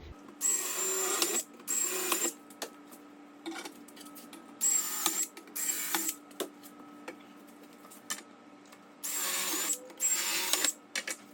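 Power drill with a tapered bit boring handle holes through a door, run in six short bursts of under a second each, grouped in three pairs. Each burst carries the high whine of the motor.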